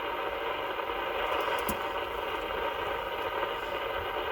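CB radio receiver hissing with steady static on an open channel between transmissions. There is a brief click a little under halfway through.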